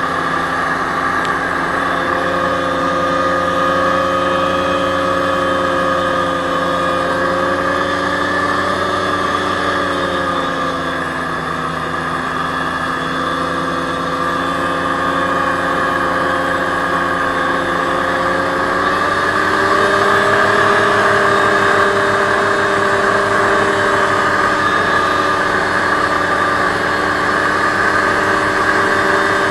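Aerocruiser SA-1100 hovercraft running steadily under way. Its engine and fan pitch dips a little about a third of the way through, then rises and grows slightly louder about two-thirds in.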